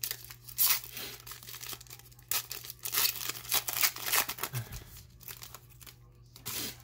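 Foil wrapper of a baseball card pack torn open and crinkled by hand: irregular rips and crinkles, thinning out after about four and a half seconds.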